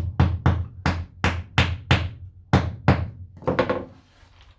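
Hammer tapping short wooden rod plugs into holes in a plywood floor: about a dozen sharp strikes, roughly three a second, stopping shortly before the end.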